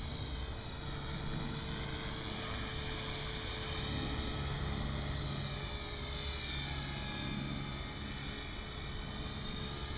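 Align T-Rex 450 Pro electric RC helicopter in flight at a distance: a steady high whine that drifts slightly in pitch over a low rotor hum.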